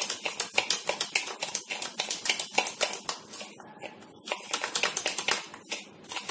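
A spoon beating rapidly against the inside of a cup, clicking and scraping several strokes a second, with a brief lull a little past the middle. The spoon is whipping instant coffee, sugar and a little water into a thick paste for beaten coffee.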